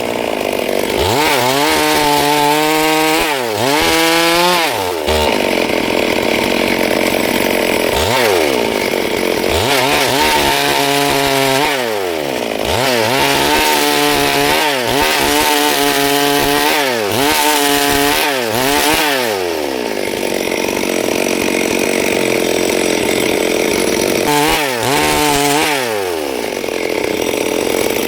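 Chainsaw engine revving up and down over and over, with longer stretches held at full throttle that fit the saw cutting into wood.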